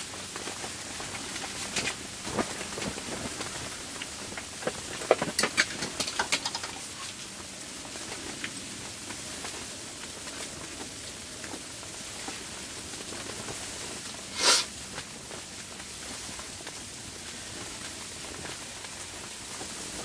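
Falling snow pattering and hissing steadily against the microphone and gear during a snowstorm. Scattered clicks and ticks come about two seconds in and again around five to seven seconds in, and a single short, loud rush of noise comes about fourteen and a half seconds in.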